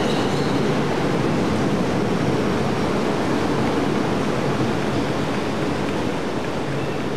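Suburban passenger train running past at speed: a steady rushing rumble of wheels and air that eases slightly near the end as the last car goes by.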